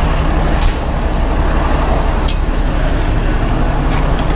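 Coach bus engine idling close by, a steady low rumble, with two short sharp high sounds about half a second and two and a quarter seconds in.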